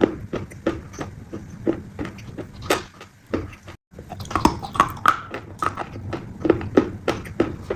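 A piglet chewing crunchy food: crisp, even crunches about three a second, broken by a brief silent gap just under four seconds in where the audio is cut.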